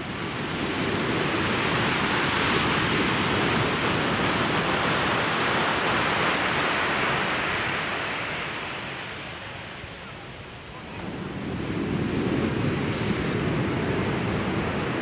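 Surf breaking on a shingle beach, a dense rushing wash that swells, eases off about two-thirds of the way through, then builds again, with wind buffeting the microphone.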